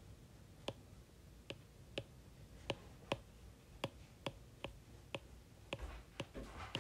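Stylus tapping and clicking on a tablet screen while writing by hand: a series of faint, irregular clicks, about two a second, coming a little quicker near the end.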